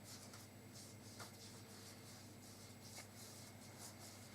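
Faint, soft scratching strokes, a few a second, of glue being spread over a finished jigsaw puzzle, over a low steady room hum.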